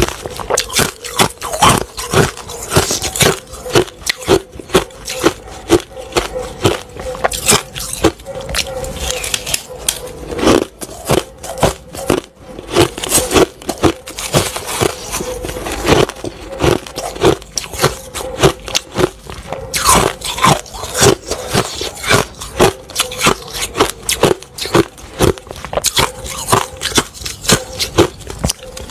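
Close-miked chewing of crushed ice: rapid crunches, several a second, with a wooden spoon scraping ice in a glass bowl.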